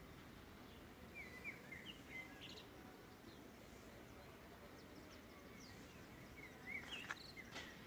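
Songbirds chirping faintly over a steady outdoor background hiss, in two short bursts of warbling notes: one about a second in and one near the end.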